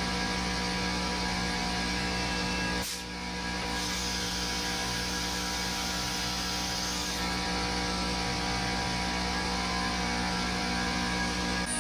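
Steady machine hum and whir, with a constant mix of tones over a hiss, from shop machinery running during the acrylic work. It dips briefly about three seconds in.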